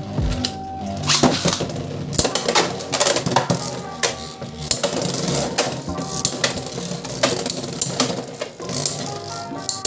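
Beyblade X spinning tops (Talon Ptera 3-80 Ball against Wizard Arrow) clashing in a plastic stadium: rapid, irregular plastic-and-metal clicks, knocks and rattles. Background music plays under it.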